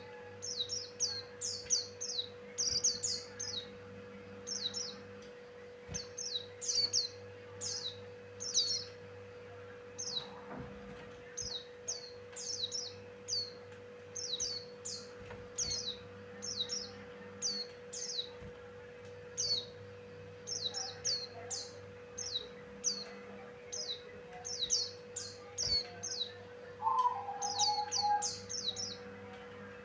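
Pleci Buxtoni white-eye singing: quick clusters of high, thin, downward-sweeping chirps repeating throughout, over a steady low hum. Near the end a lower, warbling call joins in.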